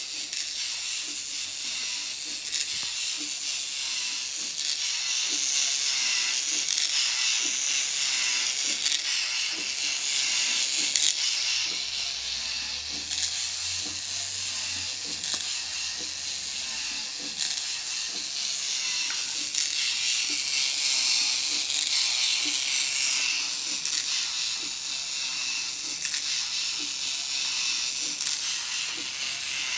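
Small AA-battery electric motor whirring as it drives a K'Nex model's plastic gears and flapping wings, with faint repeated clicking from the linkage. A low hum joins for a few seconds midway.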